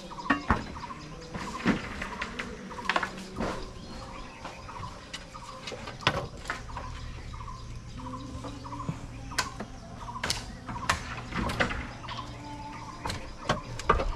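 Irregular sharp knocks and clinks of fired-clay roof tiles and wooden rafters being handled and struck while a tiled roof is dismantled, a dozen or more separate hits.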